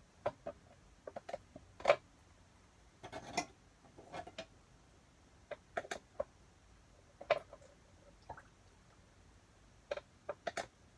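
Sparse small clicks and taps at uneven intervals, the loudest about two seconds in, with a short scrape just after three seconds: handling noise from working the liquid paints.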